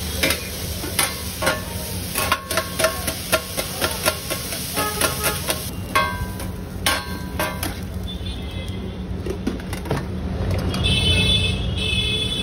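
Steel scraper and steel tray clanking and scraping on a hot flat iron griddle while food sizzles, a run of sharp ringing metal knocks over the first seven seconds. Street traffic noise grows louder near the end.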